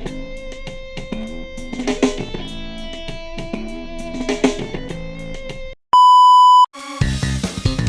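Guitar music playing through a small JBL GO Bluetooth speaker. Near the end the track stops, a steady beep sounds for under a second, and a different track with heavier bass starts.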